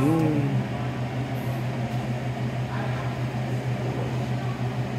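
Steady low hum of a running kitchen appliance motor.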